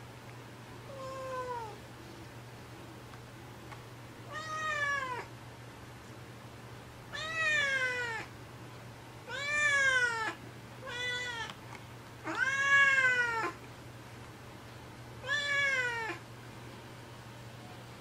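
Cat meowing seven times, long calls that rise and fall in pitch, every two or three seconds, the loudest about twelve seconds in. The cries of a wary, half-feral former stray protesting being stroked and wanting to get away.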